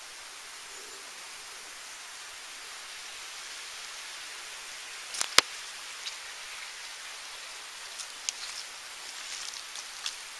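Outdoor woodland ambience: a steady hiss with light rustling, one sharp snap about halfway through, and a few lighter ticks near the end.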